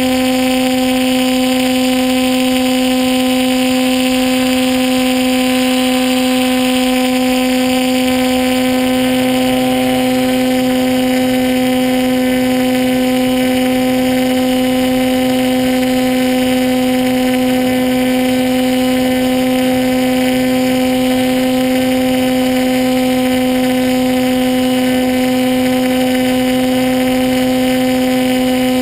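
Motor and propeller of a radio-controlled model plane, picked up by the camera on board, running at a steady throttle: a constant hum that holds one pitch throughout, with air rushing past.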